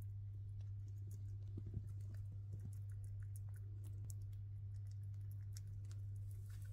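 A chipmunk gnawing and cracking seed hulls in its mouth: quick, irregular small clicks, with one sharper crack a little under two seconds in, over a steady low hum.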